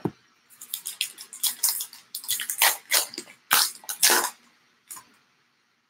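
Trading-card pack wrapper being pulled open by hand: a run of sharp crinkling crackles for about four seconds, with one more short crackle near the end.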